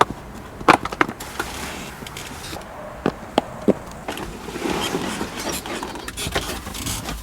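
A few sharp clicks and knocks, with no engine running: a lull between attempts to start a reluctant car.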